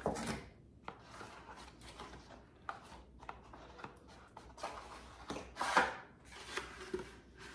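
Stiff cardboard presentation-box packaging being handled: a card set down, then the inner box and its lid worked open by hand, with rustling, scraping and a few light knocks. The loudest rustle comes a little before six seconds in.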